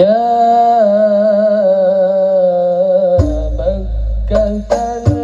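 Al-banjari sholawat performance: a male lead singer starts with a long held note that wavers slightly. About three seconds in, the rebana frame drums and bass drum come in with a beat under the voice.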